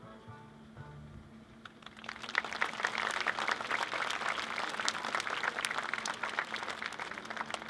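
The last sung note of a children's choir fades out in the first second, then the audience applauds, starting about two seconds in and tapering near the end.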